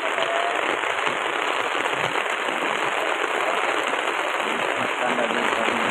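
Steady rain falling, a dense even noise of many small drop impacts.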